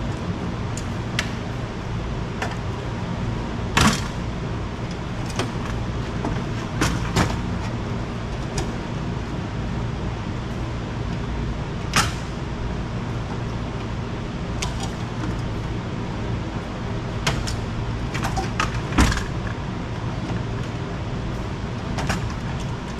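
Wire cutters snipping and wiring being pulled from a stripped microwave oven's metal chassis: sharp clicks and small metal knocks every second or few, over a steady low hum.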